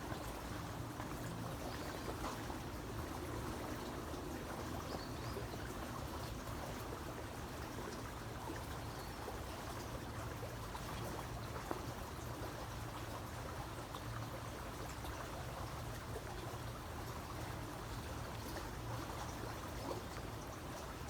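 Creek water flowing and trickling steadily.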